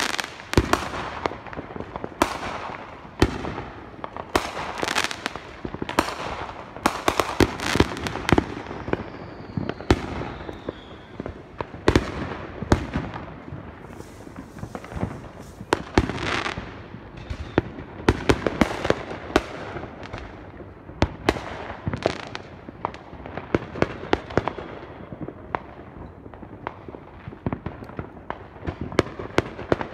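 New Year's fireworks going off: a constant run of sharp bangs and pops, several a second, without a pause. A faint falling whistle comes partway through.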